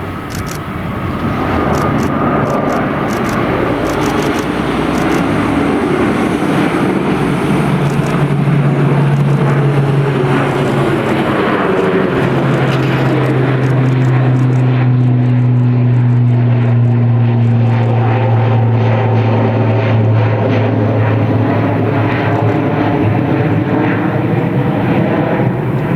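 Airliner's engines passing close and loud, building over the first couple of seconds into a steady rush with a low drone that drifts slightly down in pitch as the aircraft goes by.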